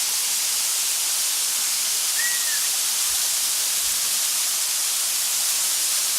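Waterfall rushing in a steady, even hiss of falling water. A single brief high note sounds about two seconds in.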